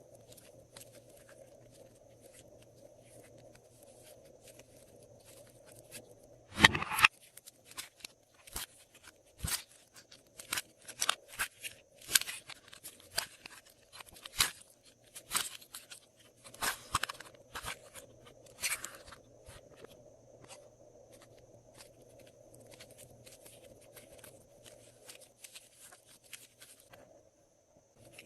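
Glossy slime being worked by hand, giving many sharp clicks and pops that come thickest through the middle, with one louder squelch about a third of the way in. A faint steady hum runs underneath.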